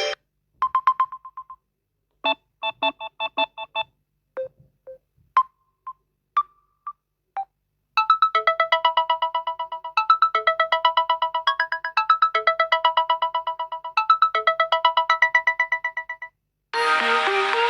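Samsung Galaxy A04s ringtones and alert tones played one after another. First come short electronic beep patterns and a few single chimes with silences between them. From about eight seconds in, a quick, repeating melody of short plucked-sounding notes plays, and near the end a different, denser ringtone begins.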